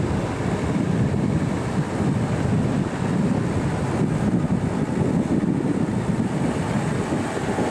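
Strong wind buffeting the microphone over the engine of a four-wheel-drive bogged in soft beach sand, running as it tries to drive out.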